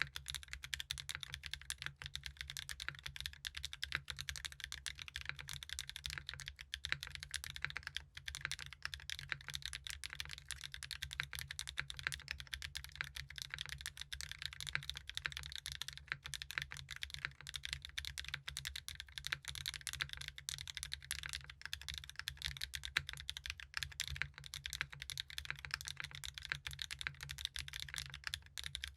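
Continuous fast typing on a custom mechanical keyboard with Mode Designs Tomorrow tactile switches, an aluminium plate, an O-ring mount, no foam and ABS double-shot keycaps. A dense, unbroken run of keystrokes with a low-pitched, solid, full sound.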